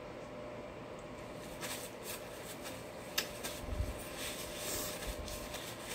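Faint mouth and handling noises of someone eating at a table: a finger licked clean, small lip smacks and rustles, with one sharper click about three seconds in, over a steady low room noise.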